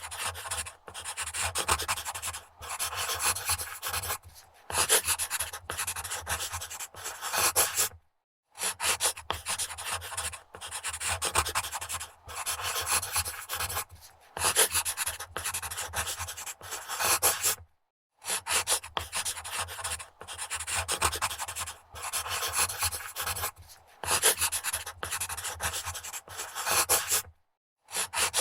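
Pencil writing quickly on paper on a wood desk: fast scratchy scribbling strokes in runs of a second or two, broken by brief pauses, with longer full stops about every four to ten seconds.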